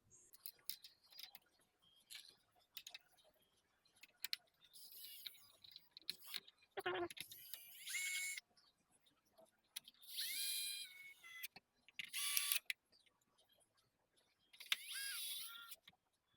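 Sped-up sound of a game console being put back together. There are scattered light clicks and taps of small parts and screws, with several short, high, squeaky bursts in between.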